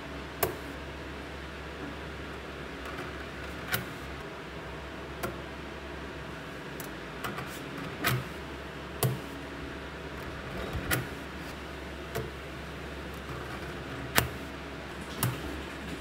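Magnetic balls clicking as they snap onto the ball structure: about nine sharp clicks spaced irregularly, a second or more apart, over a steady low hum.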